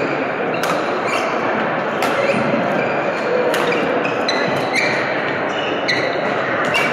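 Badminton rally: rackets hit the shuttlecock with sharp cracks a second or so apart, mixed with short squeaks of shoes on the wooden court, over steady hall noise.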